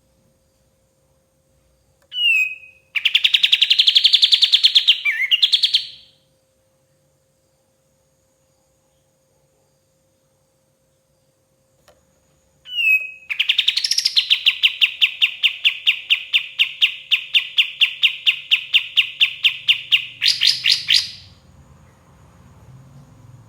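A bird called 'kapas tembak' by Indonesian bird-keepers, singing two phrases. Each phrase opens with a short down-slurred note and runs into a fast, even trill. The first trill lasts about three seconds; the second lasts about seven seconds at roughly six notes a second and ends on a higher flourish. A faint steady hum sits underneath.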